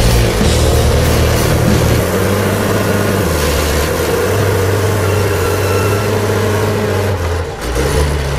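Grapple skidder's diesel engine running hard under load as the machine works through deep mud, the low engine note shifting a few times.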